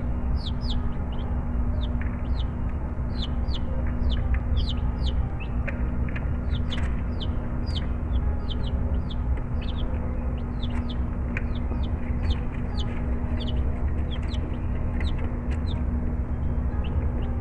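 Buff Orpington chicks peeping: a continuous run of short, high, falling peeps, several a second, over a steady low hum.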